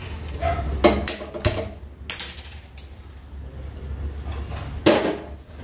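Scattered clicks and knocks of a large pot of sugar syrup being set on a gas stove and the stove being worked, a handful of sharp strikes spread out, the loudest near the end, over a low steady hum.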